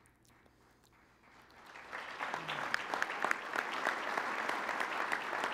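Audience applauding: near silence at first, then clapping swells in about a second and a half in and settles into steady applause.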